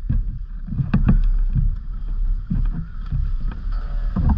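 Wind rumbling on the microphone, with irregular footsteps and knocks of scuba gear as divers walk down concrete steps.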